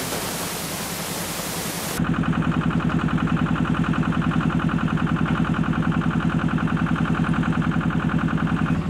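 A hiss that cuts off suddenly about two seconds in, then a crawler crane's engine running steadily with a fast, even pulse as it lowers a catamaran hanging in its slings.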